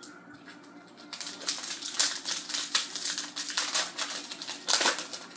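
Hockey card pack being opened and its cards handled: a dense run of rapid crinkling, rustling and flicking that starts about a second in, with the loudest bursts around two seconds and near the end.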